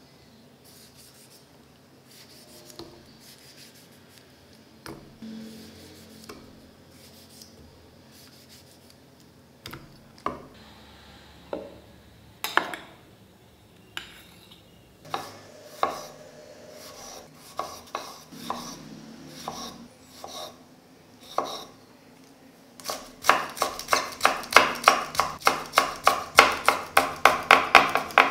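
Scattered knocks and clinks of kitchen utensils, then, about 23 seconds in, a knife chopping food on a cutting board in a quick, steady run of about four strokes a second.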